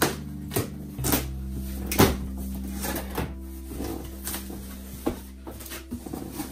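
Scissors set down on a tabletop, then the taped flaps of a large cardboard shipping box pulled open and folded back: a series of sharp knocks and cardboard rustles, the loudest about two seconds in.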